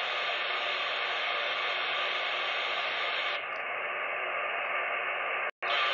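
CB radio receiver hissing with steady open-channel static between transmissions. It cuts out for an instant near the end, then the hiss comes back.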